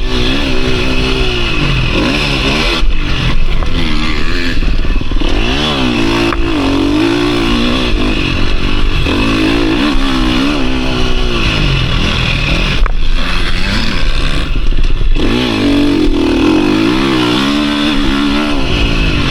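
KTM 350 SX-F four-stroke single-cylinder motocross engine ridden hard, its revs rising and falling over and over, with the throttle briefly shut about three seconds in and again for a couple of seconds near the thirteen-second mark.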